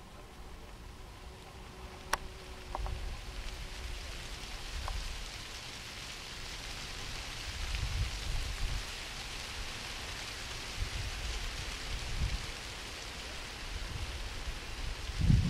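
Outdoor wind noise: gusts buffet the microphone in uneven low rumbles over a steady rain-like hiss that builds up a few seconds in. One sharp click comes about two seconds in.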